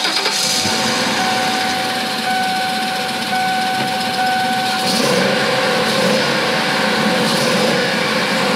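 Ford E350 van engine running loudly just after starting, heard from the cab with the engine cover off, its blown-out spark plug hole freshly repaired with a thread insert. A thin electronic warning tone sounds on and off over the engine.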